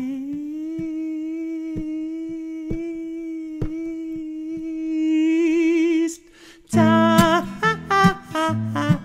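A man's voice holding one long wordless sung note for about six seconds, the pitch wavering more toward the end, over faint taps. It breaks off, and after a short gap acoustic guitar strumming comes back in with more singing.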